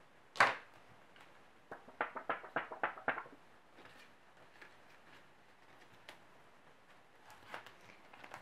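Plastic zip pouches and pages of a ring binder being handled: one sharp rustle about half a second in, then a quick run of about eight short crinkles around two to three seconds in, and a few faint ticks after.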